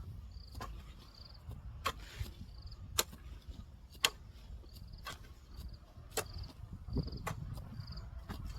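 Hand hoe chopping into weeds and soil, one strike about every second, with an insect chirping in short, evenly repeated pulses.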